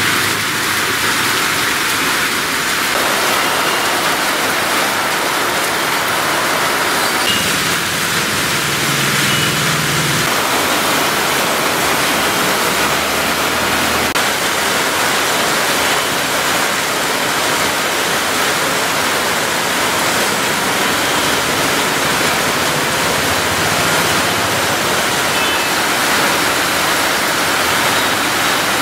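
Heavy monsoon rain pouring onto a street and the puddled road, a steady, even hiss.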